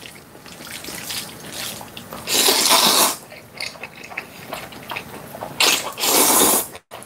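A person slurping up ganjjajang (black-bean-sauce) noodles in two loud, drawn-out slurps, one about two and a half seconds in and one near the end, with quieter chewing sounds between.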